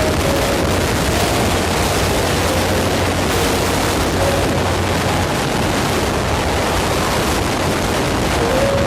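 Heavy monsoon rain pouring down, a loud steady hiss.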